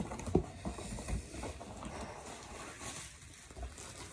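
Cardboard box being opened by hand: flaps and cardboard inserts knock and scrape, with a few sharp knocks in the first half-second, then softer rustling that tails off.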